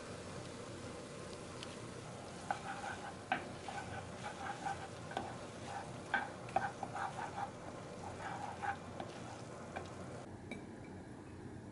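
Noodles sizzling in a frying pan while a wooden spatula stirs and tosses them, tapping and scraping against the pan in quick, irregular strokes. The sizzle drops away near the end.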